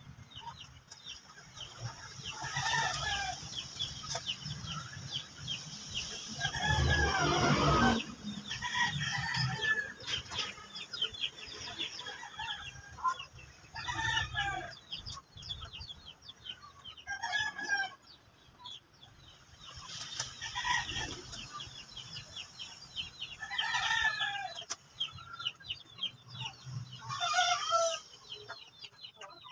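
Chickens: roosters crowing again and again, about every three to four seconds, with hens clucking; the loudest, longest crow comes about seven seconds in.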